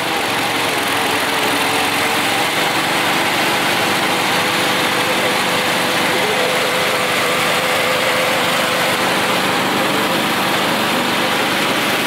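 Toro riding lawn mower's small engine running steadily.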